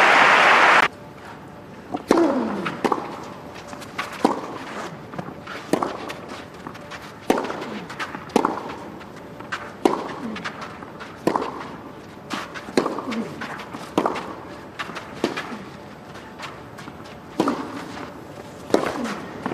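Crowd applause that breaks off about a second in, then a long tennis rally: sharp racket strikes on the ball roughly once a second, back and forth, each with a short ringing echo in the arena, with softer ball bounces between.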